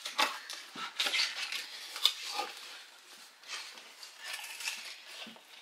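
Cardboard box flaps being folded open and crumpled brown kraft-paper packing rustling and crinkling under the hands, in irregular scratchy rustles with a few sharp clicks.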